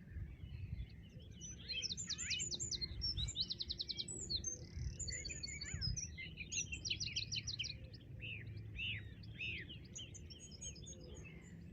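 Several songbirds singing at once, a dawn-chorus-like mix of rapid trills and quick series of high chirps, busiest in the middle, over a steady low rumble.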